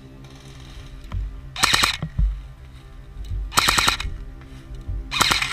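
Apex PP-19 Bizon electric airsoft gun firing three short full-auto bursts about two seconds apart, each a rapid string of cracks lasting about half a second, over background music.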